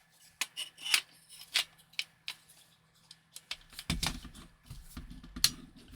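Sharp, separate metallic clicks and clacks from a Wolverine MTW-9 HPA airsoft rifle being worked by hand, checked to see whether it functions after reassembly. The clicks come about every half second at first; from about 4 seconds in there is denser handling noise, with one louder click near the end.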